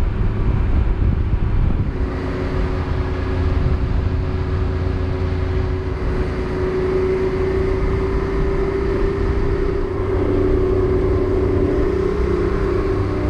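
Motorcycle engine running at a steady cruising speed while riding, over a constant low road rumble.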